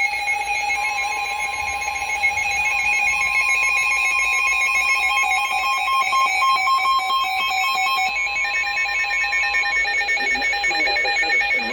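Weather radio sounding a tornado-warning alert: a rapid warbling, pulsing electronic alarm throughout. Over it, the broadcast's steady warning alarm tone starts about a second in and stops about ten seconds in.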